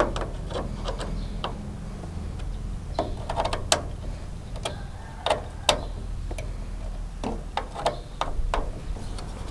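Door trim panel of a Toyota Commuter van's sliding door being pulled and pried off, its plastic retaining clips giving sharp clicks and snaps at uneven intervals. A steady low hum runs underneath.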